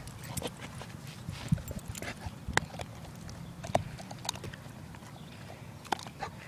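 A dog chewing grass: faint, irregular wet clicks and crunches from its mouth, a few sharper ones spaced about a second apart.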